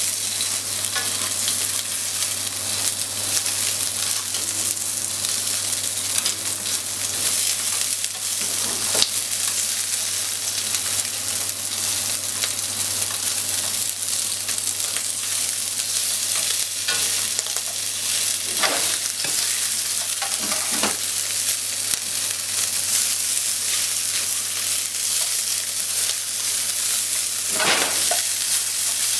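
Pieces of salmon sizzling steadily as they are stir-fried in a nonstick frying pan, with the stirring utensil scraping and tapping against the pan now and then, several times a little past the middle and once more near the end. A steady low hum runs underneath.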